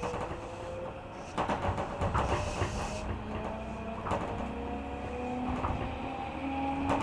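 Inside a JR 205 series electric train: the traction motors and gears whine, rising steadily in pitch as the train gathers speed, over a low running rumble. A few short clacks of the wheels over rail joints.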